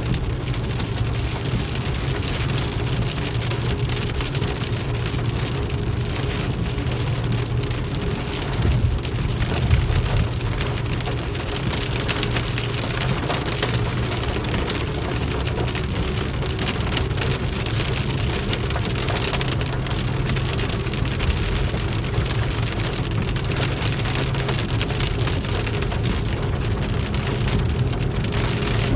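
Rain falling on a car's roof and windshield, heard from inside the moving car as a steady hiss over a continuous low rumble of engine and road noise.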